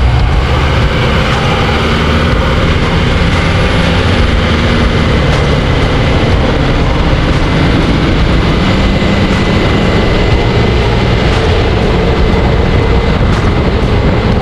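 Steady roar of tyres on the road and wind rushing past a camera mounted under a lifted Chevrolet Colorado ZR2's front suspension, the truck cruising at freeway speed.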